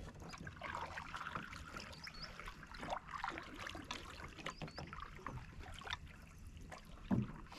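Canoe paddles dipping and pulling through calm water, with small splashes, drips and light clicks. One louder, dull knock comes near the end.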